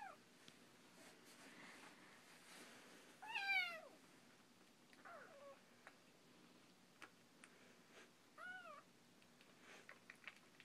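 Just-weaned kittens mewing: four short, high-pitched calls a few seconds apart, each rising then falling in pitch, the loudest about three and a half seconds in.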